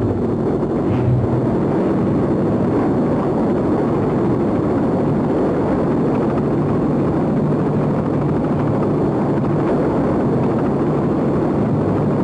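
Military helicopter in flight: a steady rush of rotor and engine noise with a low hum.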